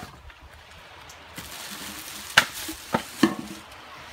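A low crackling hiss with three sharp knocks close together in the second half: handling knocks beside a wood cooking fire.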